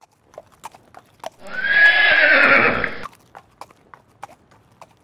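Horse sound effect: a single loud neigh lasting about a second and a half, over a string of clip-clopping hoofbeats.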